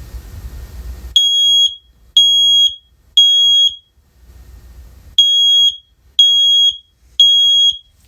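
First-generation First Alert OneLink hardwired smoke alarm sounding its test alarm. It gives two rounds of the temporal-three pattern: three loud, steady half-second beeps about a second apart, a pause, then three more.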